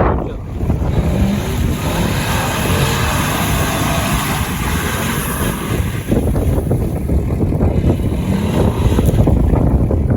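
Off-road vehicle's engine running and revving, with its pitch rising and falling, under heavy wind rumble on the microphone.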